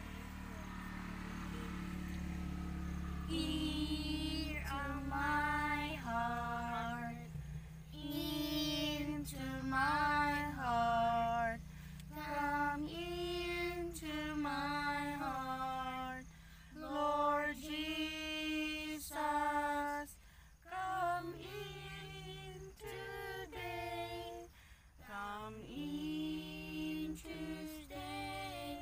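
A woman and two children singing a hymn together, unaccompanied, in long held notes.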